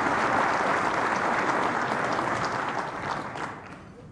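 Audience of dinner guests applauding, a dense spatter of many hands clapping that dies away near the end.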